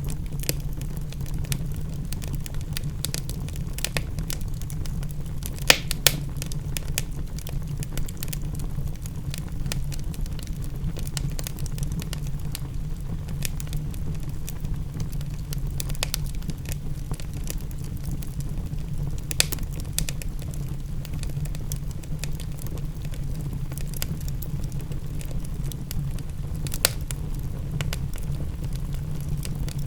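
Wood fire crackling with scattered sharp pops over a steady low rumble; a few louder pops stand out, about six seconds in, near the middle and near the end.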